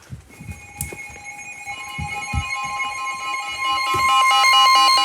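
Electronic weather-alert tones from a phone's Storm Shield app, sounding a severe thunderstorm warning. Steady tones start just after the beginning, a higher tone joins about a second and a half in, and rapid pulsing beeps follow, all growing louder. Scattered low thumps sit underneath.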